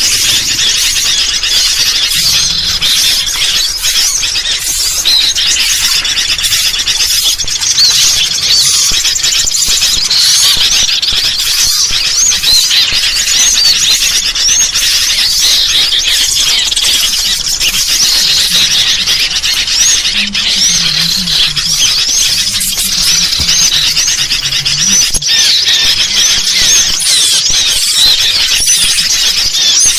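Dense chorus of sooty-headed bulbuls (kutilang) in noisy, agitated chatter, overlaid with the calls of small birds: a bird-lure mix of rapid, overlapping high chirps and short whistled sweeps.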